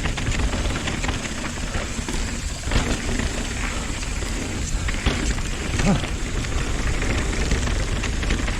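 Nukeproof Dissent downhill mountain bike descending fast over braking bumps: a steady rush of wind and tyre noise on dirt with a deep rumble, and a few sharper knocks from the bike about three, five and six seconds in.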